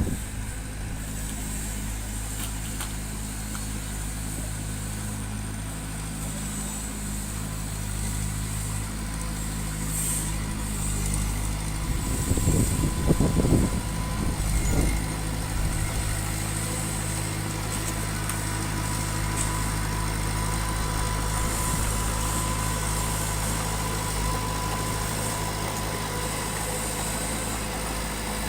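Diesel engine of heavy construction machinery running steadily, with a few seconds of louder clattering about twelve seconds in.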